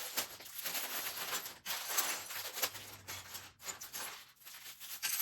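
Crinkling and rustling of a plastic Lego parts bag being handled, with many small clicks and crackles.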